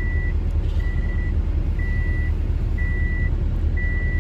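2007 Subaru Impreza engine idling with a steady low rumble after a jump start, while an electronic chime beeps about once a second.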